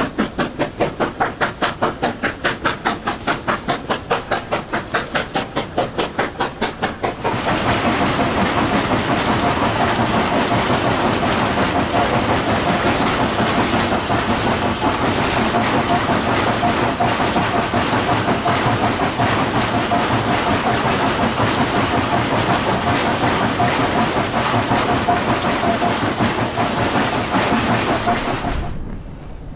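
JS-class steam locomotive working under load, its exhaust beating in a fast, even rhythm of about five chuffs a second. About seven seconds in, this gives way to the noise inside the locomotive's cab: a steady rush of steam hiss and running noise with a constant high note, which drops off near the end.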